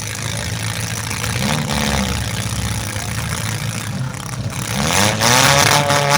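Demolition derby car engines running and revving, the pitch rising and falling; a louder rev comes about five seconds in.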